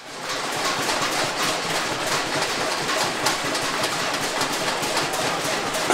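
Many people banging pots and pans along an apartment street at night, the nightly noise protest against the military coup: a dense, continuous clatter of metal strikes that cuts in suddenly.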